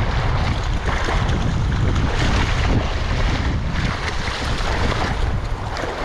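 Wind buffeting the microphone over the wash of ocean surf, a loud, uneven rumble with no distinct events.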